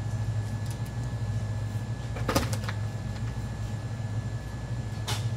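Shop room tone: a steady low hum, with two brief clatters, one about two seconds in and one near the end.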